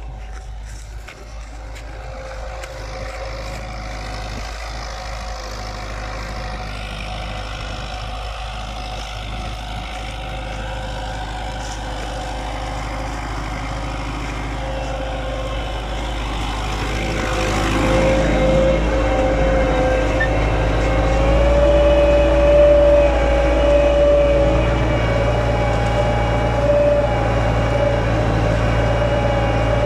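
Tümosan 82-80 tractor's diesel engine running steadily under load, pulling a four-furrow reversible plough through the soil. It gets louder a little past halfway.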